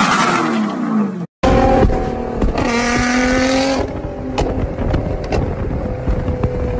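Nissan GT-R's engine revving up on the move, then a steadier engine note broken by sharp cracks and pops from the exhaust as it shoots flames.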